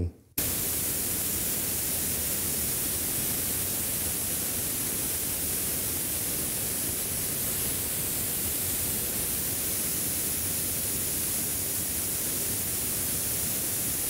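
Compressed air hissing steadily out of a gravity-feed spray paint gun held wide open, starting almost at once and cutting off suddenly at the end. The compressor tank is draining from 140 toward 120 psi in a timed air-flow test through a stock 1/4-inch air fitting.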